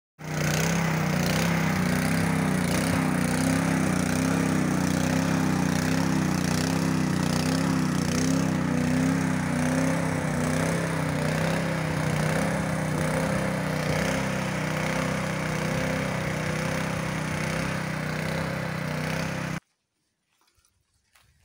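Small petrol engine of a walk-behind rotary tiller running steadily under load as its tines churn garden soil. The sound cuts off suddenly near the end.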